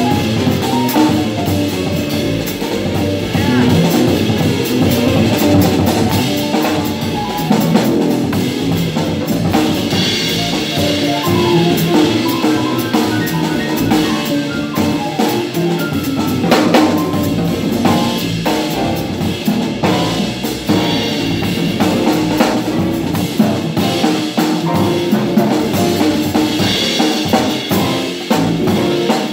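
Live jazz piano trio playing: acoustic grand piano, upright double bass and a drum kit, with the drummer working cymbals, snare and rimshots.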